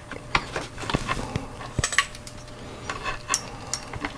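Small metallic clicks and clinks of multimeter test leads and clips being handled and connected, several irregular taps scattered through the moment.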